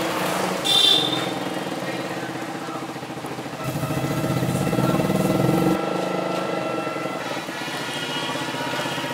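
Street traffic with motorcycle and small motor-vehicle engines running, a steady engine hum throughout. A brief high-pitched sound comes just under a second in, and an engine grows louder for about two seconds in the middle before dropping back.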